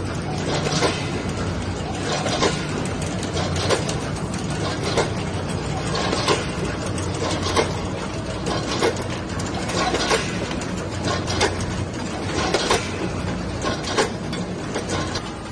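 Vertical packaging machine running, with a regular sharp clack roughly every second and a third as it cycles through each bag, over a steady motor hum.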